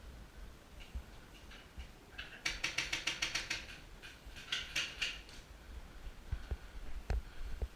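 Paintball markers firing in two rapid bursts, a string of quick pops at about nine a second, the second burst shorter.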